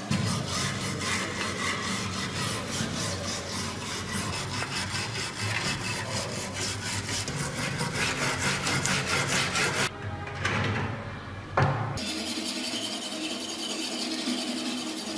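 A stiff wooden-handled brush scrubbing a rusty kukri blade in a tray of liquid, in rapid, even back-and-forth strokes. The scrubbing breaks off briefly about ten seconds in, then carries on with a slightly different scraping texture.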